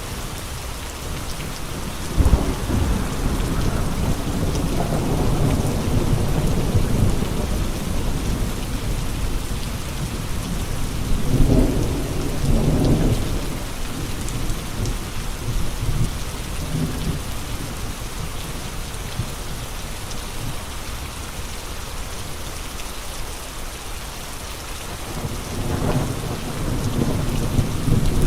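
Steady rain falling, with low rumbles that swell and fade: one starting about two seconds in, a stronger one around twelve seconds in, and another near the end.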